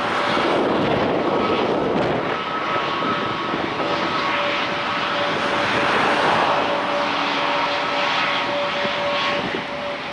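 Airbus A321neo's Pratt & Whitney PW1100G geared turbofan engines running at low thrust as the airliner taxis close by: a steady whine over an even rush of engine noise, swelling a little midway and easing near the end.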